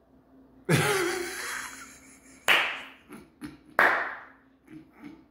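A man bursting into loud laughter: a drawn-out first laugh, then two sharp explosive bursts and a few smaller chuckles near the end.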